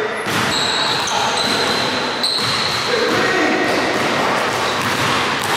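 A basketball is dribbled on a hardwood gym floor while sneakers squeak as the players move, with several high squeaks.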